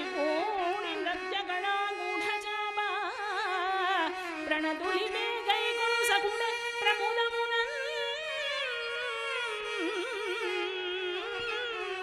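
Carnatic music accompanying a classical Indian dance: a melody with wavering, sliding ornaments on its held notes, with a few sharp percussive strikes scattered through it.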